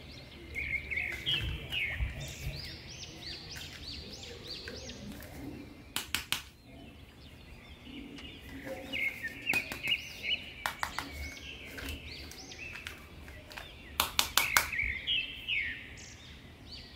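Small birds chirping over and over in the background, with a few quick clusters of sharp plastic clicks as a toy is handled.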